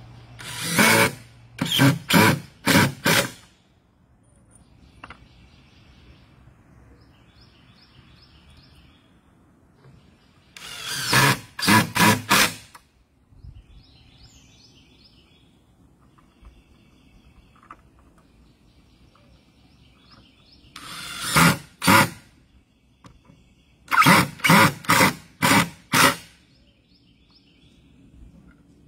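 Cordless drill driving screws into cedar fence boards, in four bursts; each burst is a short run followed by a few quick stop-start pulses. Birds chirp faintly in the pauses between.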